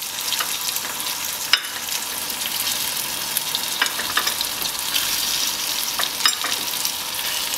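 Olive oil with onion and tomato sizzling in an earthenware cazuela over a gas flame, with a few sharp pops, as cooked crab claws are laid into the hot oil.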